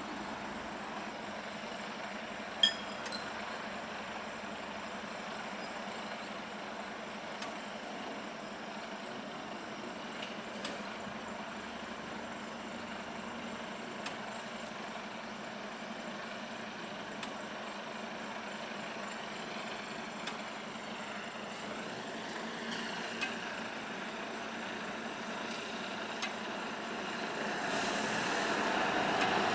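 Steady engine noise of a truck idling, waiting at a railway level crossing, with a single short sharp click about two and a half seconds in. Near the end the traffic noise grows louder.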